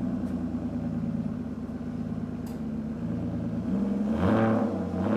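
A car engine idling steadily, then revved, its pitch rising and falling, about four seconds in.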